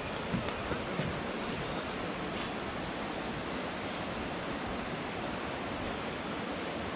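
Steady rush of a mountain stream flowing over rocks, with a few small knocks in the first second.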